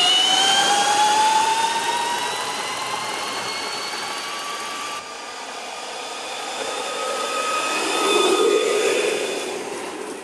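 Drill motor of a homemade electric skateboard whining as it drives the wheel, the whine rising in pitch as the board speeds up. After a cut about halfway through, the whine swells and fades again near the end.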